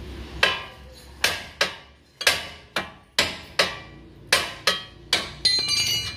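Hammer striking metal suspension parts: about a dozen sharp, ringing blows, roughly two a second, followed near the end by a brief metallic clatter.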